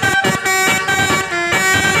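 A bus's Basuri telolet horn playing its tune. Several horn tones sound together and step quickly from note to note.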